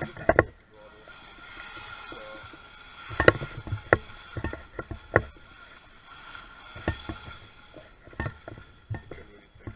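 Homemade aluminium RC jet boat's electric jet drive whining steadily, fading as the boat runs off into the distance. Several sharp knocks close to the microphone stand out above it.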